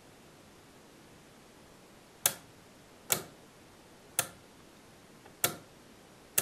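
Five sharp, short clicks, roughly a second apart, from a slot-car track's electronic control box being worked by hand.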